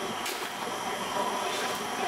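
Steady mechanical roar and hum of a bakery bread oven running, with a faint click about a quarter second in.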